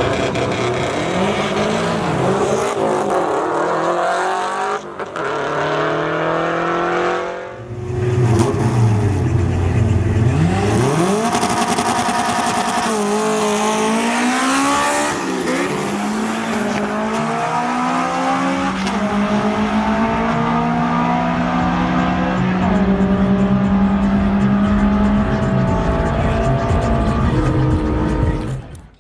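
Car engines revving hard, with several climbing revs that break off abruptly, then a long run held at high rpm that drops away near the end.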